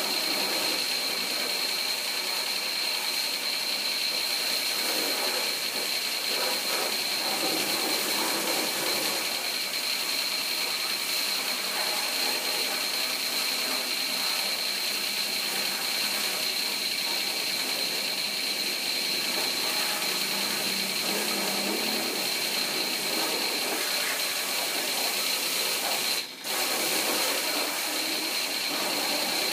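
High-pressure washer running, with a steady high whine over the hiss of its water jet spraying a car. The sound drops out briefly near the end.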